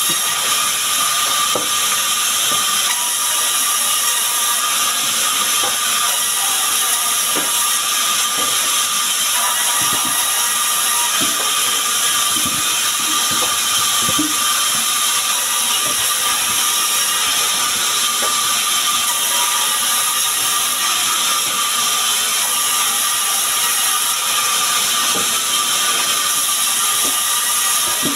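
Sawmill band saw running steadily while it cuts small sengon logs: a constant high-pitched whine over a hiss, with occasional light knocks.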